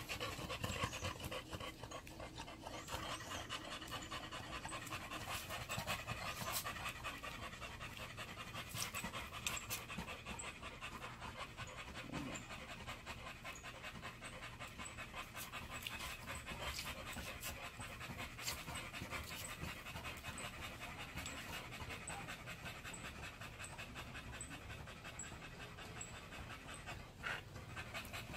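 Olde English Bulldogge panting fast and steadily, with a few brief clicks of handling.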